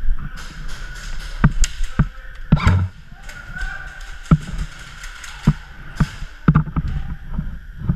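Airsoft gunfire in a plywood indoor arena: a scatter of sharp, irregularly spaced cracks and knocks, with a heavier thud about three seconds in.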